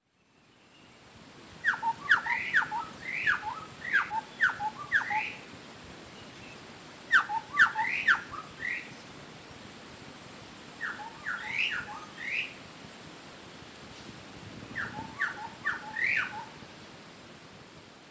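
Chestnut-backed scimitar babbler (Pomatorhinus montanus) singing in four bouts of quick whistled notes, many of them falling sharply in pitch, with pauses of a couple of seconds between bouts. A faint steady hiss runs underneath.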